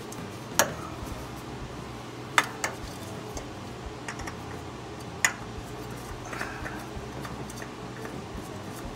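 Light metallic clicks and ticks as a new Fram spin-on oil filter is threaded onto its mount by hand. Three sharper clicks stand out among the small ticks, over a steady low hum.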